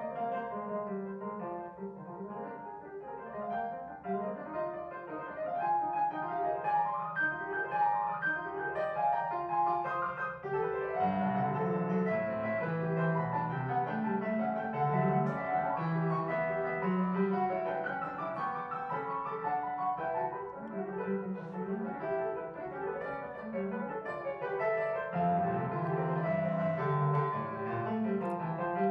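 Piano music in a classical style, a continuous run of notes, with a deeper bass part coming in about eleven seconds in.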